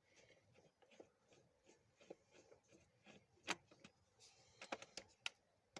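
Faint scattered clicks and small knocks from a screwdriver working the screws of a plastic steering column cover, with a sharper click about three and a half seconds in and a quick run of clicks near the end.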